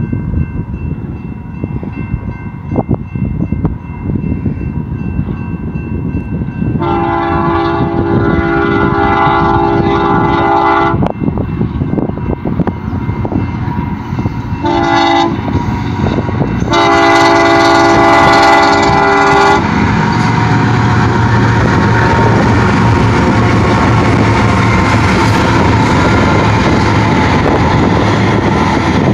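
BNSF diesel locomotives' multi-note air horn sounds a long blast, a short one and another long one, the signal for the grade crossing ahead. The train's rumble grows until the lead locomotives' engines and wheels pass loudly and steadily in the last third.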